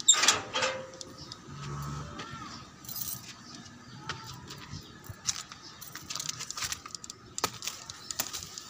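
Irregular clicks, knocks and light metallic clinks from handling while the phone is carried along, the loudest knock right at the start.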